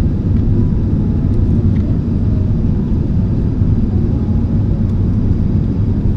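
Steady low rumble of an airliner in flight, heard from inside the cabin: jet engine and airflow noise, constant with no change in pitch.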